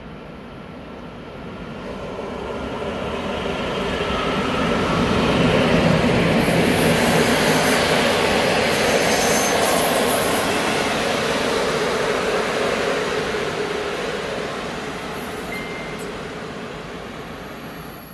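An EP07 electric locomotive hauling PKP Intercity passenger coaches passes along the platform. The train noise grows over the first few seconds, stays loud while the coaches go by, then slowly fades.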